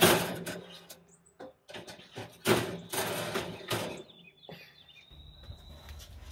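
Metal wire grill racks scraping and clanking as they are slid into the rails of a hot vertical electric smoker, several sharp clatters in the first four seconds. Birds chirp faintly near the end.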